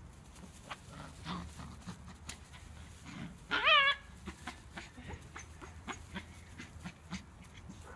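Belgian Malinois puppy giving a single high, wavering yelp about three and a half seconds in while tugging on a bite pillow, with faint scattered clicks and scuffles around it.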